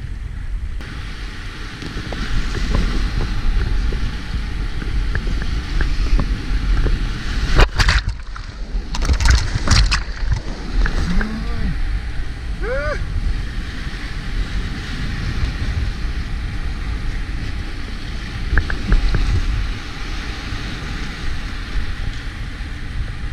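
Whitewater rapids rushing and churning around a kayak running the river, heard up close on a kayak-mounted camera, with a cluster of loud splashes about eight to ten seconds in.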